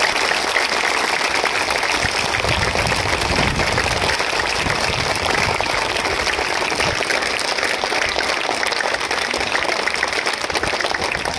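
A crowd of schoolchildren clapping steadily: a dense, even patter of many hands that keeps up without a break.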